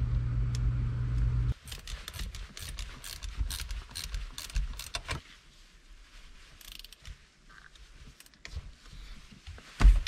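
Quick metallic clicks and rattles from a short-throw shifter and its bolt being wiggled back and forth to line up the bolt hole, ending in one louder knock near the end as the bolt goes in. Before that, a steady low hum cuts off suddenly about a second and a half in.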